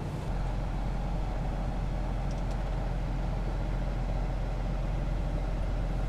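Kenworth T680 semi truck's diesel engine running steadily, heard from inside the cab as the truck moves slowly. It is a deep, even low rumble, and the lowest part of it grows slightly louder just after the start.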